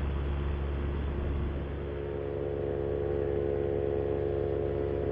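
Paramotor's Moster 185 single-cylinder two-stroke engine and propeller running steadily in flight. About two seconds in, the engine note changes, then holds steady.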